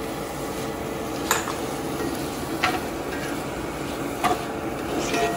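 Thinly sliced beef frying and sizzling in a cast-iron pan with a little stock, stirred with a slotted spatula that knocks against the pan four times.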